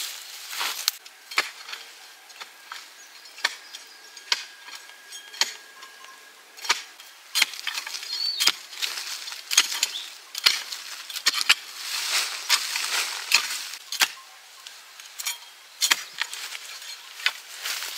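Irregular sharp knocks and clinks, roughly one a second, with a stretch of hissing about two-thirds of the way through.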